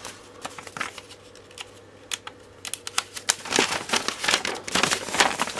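Paper instruction sheets being handled and unfolded: irregular rustling and crinkling with sharp crackles, busier in the second half.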